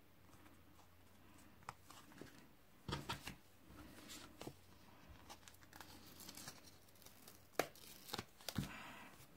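Paper and cardstock being handled: scattered rustling and crinkling with a few sharp clicks, as small die-cut paper pieces are pulled from a sheet and pressed onto card.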